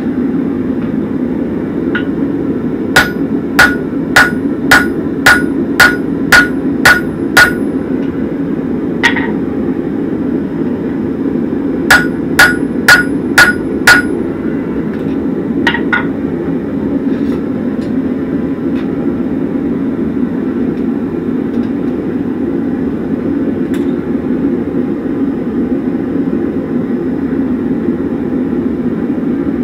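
Hammer striking a flattened chisel held upright in hot horseshoe steel on an anvil, punching a slot, with sharp ringing metallic blows. A run of eight quick blows at about two a second comes first, then a single blow, then five more. A steady low-pitched noise runs underneath.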